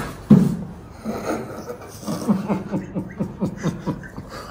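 A man cries out sharply about a third of a second in as his spine is given a chiropractic adjustment. He then makes a run of short, rapid voiced breaths, about five a second, in reaction to the pain.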